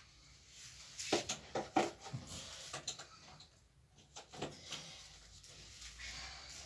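Handling noises: a quick run of short knocks and rustles about a second in, a few more about four seconds in, over a faint low hum.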